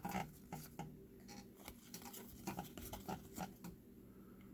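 Trading cards being flipped and shuffled by hand: faint, irregular soft clicks and card-on-card rustles.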